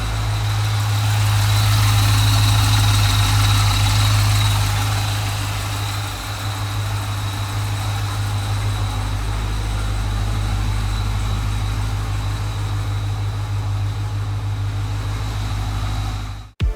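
Dodge Challenger Scat Pack's 6.4-litre HEMI V8 idling steadily, swelling slightly in the first few seconds, then cutting off abruptly near the end.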